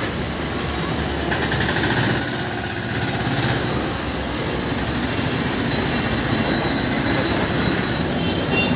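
Busy road traffic: motorcycles, a small pickup truck and a lorry driving past with their engines running, a steady mix of engine and road noise.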